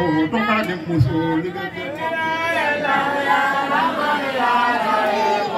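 A man's voice into a microphone, a few short phrases and then, about two seconds in, a long melodic religious chant with drawn-out, wavering notes.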